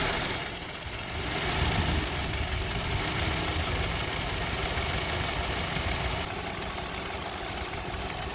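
2002 Honda CR-V's 2.4-litre four-cylinder engine idling. Its speed falls sharply right at the start, and it then runs unevenly, swelling and sagging: the rough, shaking idle that comes back once the removed sensor is reconnected.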